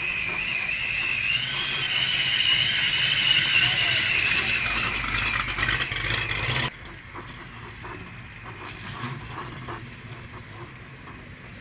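A car engine running with a loud, high wavering whine over it. The sound cuts off suddenly about two-thirds of the way through, leaving a quieter engine sound.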